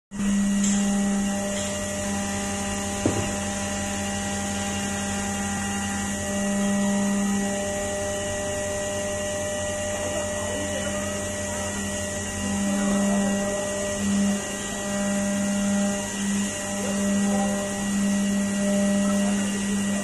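CNC vertical milling machine cutting a 6061-T6 aluminium part under flood coolant: a steady mechanical hum and whine with a hiss over it. The low hum swells and dips repeatedly in the second half, and there is one sharp click about three seconds in.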